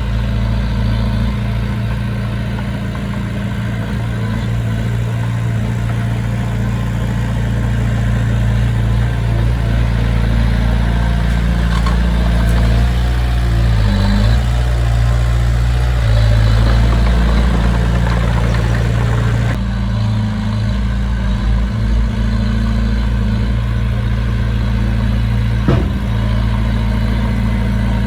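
A heavy construction machine's diesel engine running steadily, its tone shifting a little around the middle. There is one sharp click near the end.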